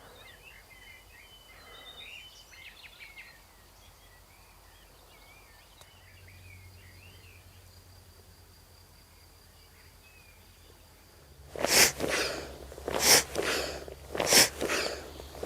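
Quiet outdoor ambience with small bird chirps and a thin steady high tone, then, about eleven seconds in, a run of loud rustling footsteps, about one a second.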